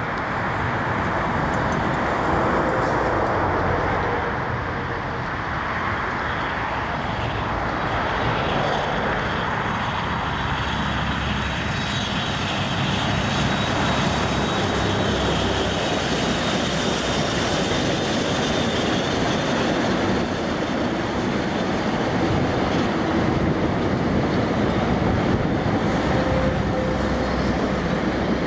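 A double-headed steam train, NZR Ja-class 1271 and Ab-class 608, approaching and passing with a steady rush of locomotive and train noise, mixed with road traffic.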